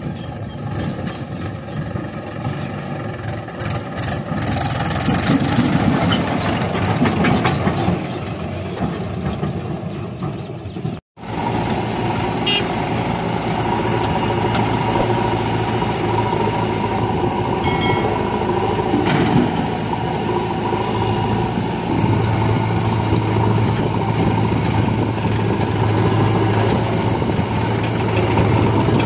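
Four-cylinder diesel engine of a Mahindra 585 DI tractor running as it drives along a dirt track. After a brief break about eleven seconds in, the tractor's and a JCB 3DX backhoe loader's diesel engines run steadily side by side, a little louder from about twenty-two seconds.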